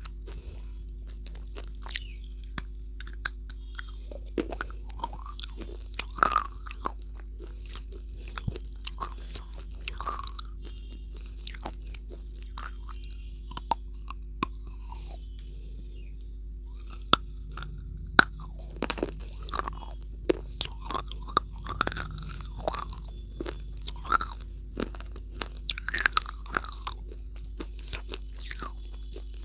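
Close-miked biting and crunchy chewing of a brittle grey-white chalk-like slab: sharp snaps and crackles scattered throughout, thinning out for a few seconds about halfway, over a steady low electrical hum.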